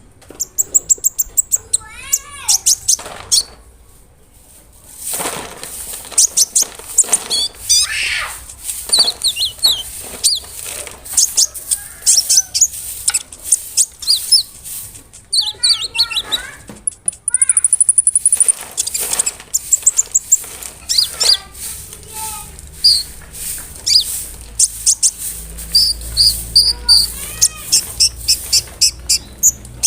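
Konin, the small sunbird kolibri ninja, singing a fast, continuous chattering song of sharp high chirps, short whistles and quick trills.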